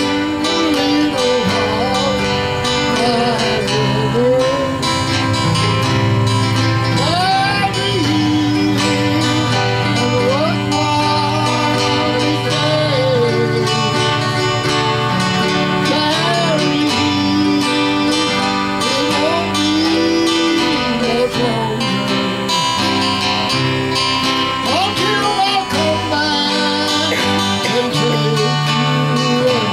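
Live country-gospel band music: acoustic guitar strumming over a bass line, with a lead melody of sliding notes above it and no words sung.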